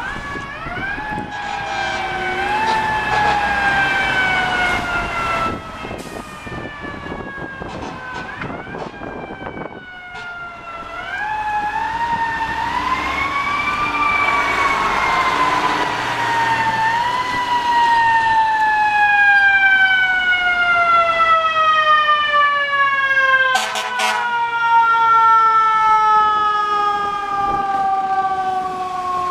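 A fire truck's mechanical siren winding up in short rises and coasting down in long, slowly falling wails, growing louder as the ladder truck approaches and passes. A short double burst of noise cuts in about three-quarters of the way through.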